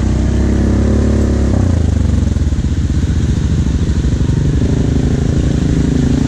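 ATV engine running steadily under throttle, then dropping back about a second and a half in to a low, pulsing idle.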